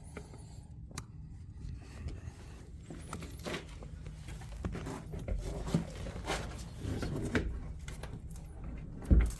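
Shuffling, clicks and knocks of a person moving about in a cramped space over a low steady hum, with one loud thump near the end.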